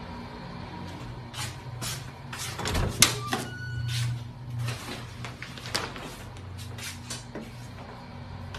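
Irregular light taps and clicks, with one sharper knock about three seconds in, over a low steady hum.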